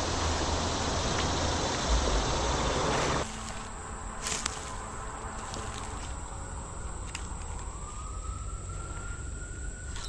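Steady rushing of shallow creek water over a riffle, cut off suddenly about three seconds in. A quieter stretch follows with a steady high insect drone and a couple of faint clicks. Near the end a distant siren rises slowly in pitch.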